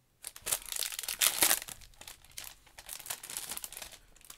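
Clear plastic cellophane packet crinkling as it is opened and handled to take out a heart embellishment. It is loudest about a second in, then settles to lighter rustling.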